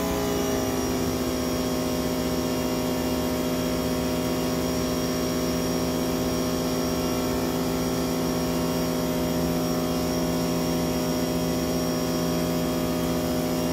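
Sun Joe SPX3000 electric pressure washer running steadily, its motor and pump holding one steady pitch while it drives water through a sewer jetter hose fed into a clogged drain pipe.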